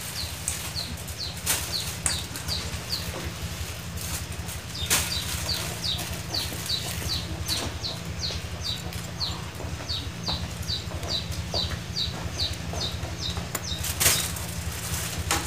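Piston and piston rings from a Yamaha Sirius RC engine handled by hand as the rings come off, giving a few sharp metallic clicks. Under them is a steady low hum, and a rapid run of short high chirps, about three a second, goes through most of it.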